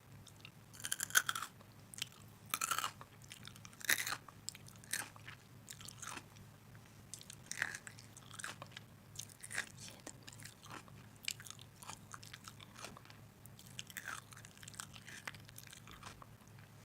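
Close-up chewing and crunching of crisp food: a few loud crunchy bites in the first four seconds, then smaller crackling crunches of steady chewing, over a faint steady low hum.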